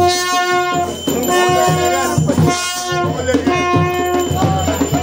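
Garhwali folk music: dhol and damau drums beating under a melody of held, repeating notes from a wind instrument.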